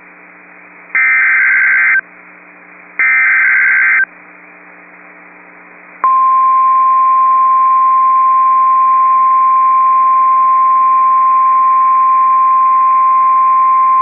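Emergency Alert System SAME header: two one-second bursts of digital data tones about a second apart, then after a two-second gap the NOAA Weather Radio 1050 Hz warning alarm tone starts and holds steady, signalling an incoming warning.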